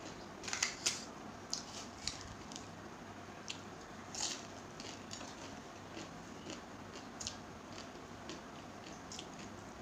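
Close-up eating sounds of a person chewing a mouthful of rice eaten by hand: wet squishing and short sharp mouth clicks and smacks. The clicks come in a cluster about half a second in and again around four seconds, then scattered through the rest.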